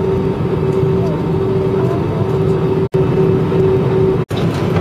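Steady jet airliner cabin noise on the ground: a low rumble with a constant humming tone. It cuts out for an instant twice, about three and about four seconds in.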